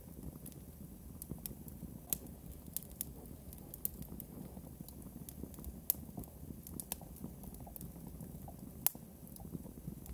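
Live experimental electronic music: sparse, irregular crackling clicks and pops over a low, noisy hum, with two sharper clicks about six and nine seconds in.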